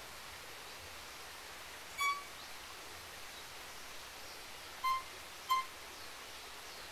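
Violin playing short, single high notes: one about two seconds in, then two more in quick succession near five seconds. They imitate the pygmy wren-babbler's whistled call.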